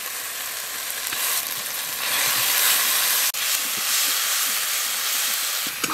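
Ground spice paste sizzling in hot mustard oil with fried onion and tomato in a kadai, stirred with a metal spatula. The sizzle gets louder about two seconds in and breaks off for an instant a little past the middle.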